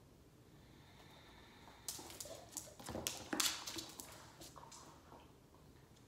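A dog close to the microphone making a quick run of short, sharp, noisy sounds for about two and a half seconds, starting about two seconds in.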